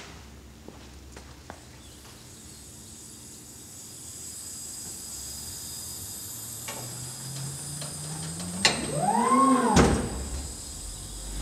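Nitrogen hissing from a bottle through a hose into a car's built-in air jacks as the car is lifted, starting a couple of seconds in and growing louder. Near the end there is a sharp click, then a tone that swoops up and back down in pitch.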